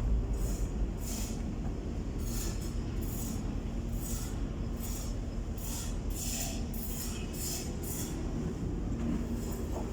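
Steady low rumble of running machinery with a faint hum, overlaid by short hissing or scraping strokes about once or twice a second that thin out near the end.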